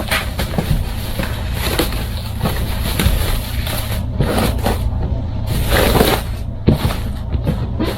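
Plastic wrapping crinkling and rustling as it is pulled off a multimedia speaker, with irregular louder crackles, over a steady low hum.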